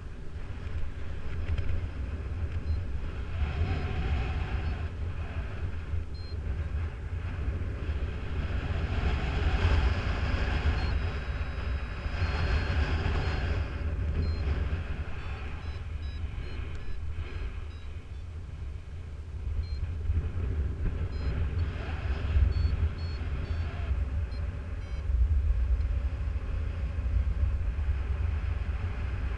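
Wind buffeting the microphone in flight: a steady low rumble with rushing that swells and fades several times. Faint short high beeps come in the second half.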